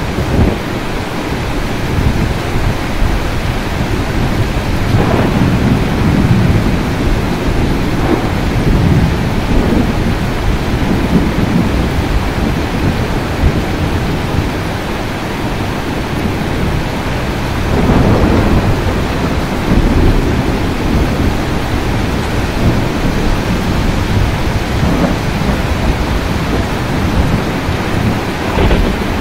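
Steady rain with low thunder rumbling underneath, swelling louder about five seconds in and again around eighteen seconds.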